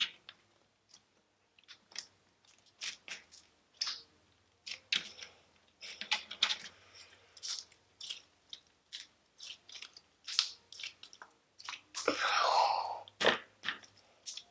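Fluffy slime being squished and stretched by hand, giving off irregular sticky clicks and crackles, with a longer, louder squelch about twelve seconds in.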